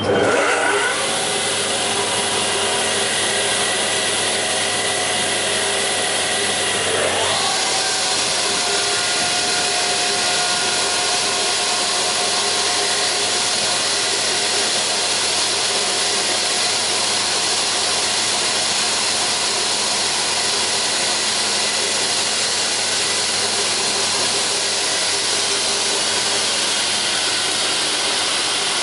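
The electric motors of a FOD Bydgoszcz double-sided parquet tenoner are switched on and spin up, with a rising whine in the first second. A second rising whine comes about seven seconds in as another motor starts. Then the machine runs steadily with an even mechanical noise and a constant whine.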